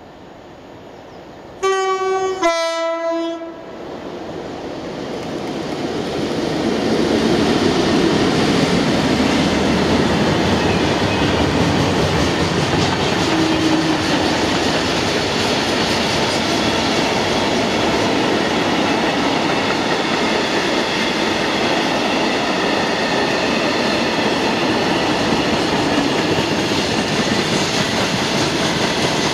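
Colas Rail Class 60 diesel locomotive sounding its two-tone horn about two seconds in, a higher note then a lower one, each about a second long. The train then grows louder as it passes and the long rake of covered freight wagons runs by with a steady clickety-clack of wheels over the rail joints.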